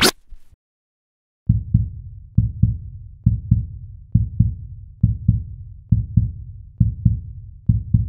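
Heartbeat sound effect: deep double thumps, lub-dub, about one pair a second, eight pairs in all, starting about a second and a half in.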